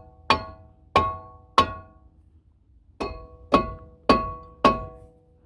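A seized cast-iron brake rotor on a Kia Sedona is struck with a small hybrid axe to break it free of the hub. Each blow gives a sharp metallic clang that rings on briefly, seven in all: three about half a second apart, a short pause, then four more.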